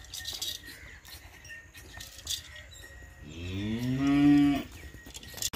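Dairy cow mooing once, a single call of about a second and a half that rises in pitch at the start and then holds.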